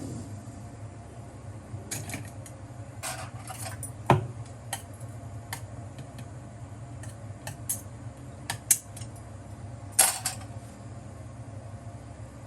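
Metal cookware and utensils clinking and knocking at irregular moments, with a sharp knock about four seconds in and the loudest clatter near the end, over a steady low hum.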